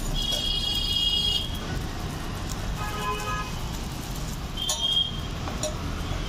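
Steady street-traffic rumble with vehicle horns tooting three times: a bright horn for about a second at the start, a lower, shorter one about three seconds in, and a brief one near five seconds.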